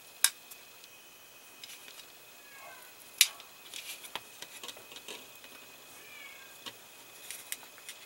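Handling noise of a plastic model interior panel and fabric seatbelt strap being threaded through it: two sharp clicks, one just after the start and one about three seconds in, then scattered light ticks and rustles. Two faint, short, high falling squeaks come about two and a half and six seconds in.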